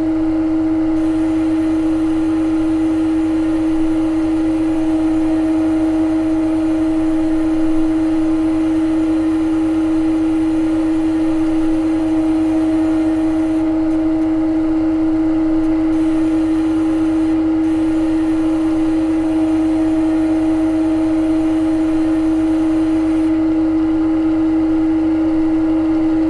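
Simulated CNC lathe running a turning program in a lathe-simulator app: a steady hum at one unchanging pitch from the virtual spindle and machine.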